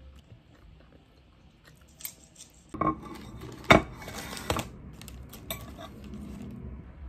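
Crockery and packaging handling at a desk: a plastic cake wrapper crinkles, and a ceramic plate knocks sharply on the desk top about three and a half seconds in. After that come a few light clicks of a metal fork against the plate.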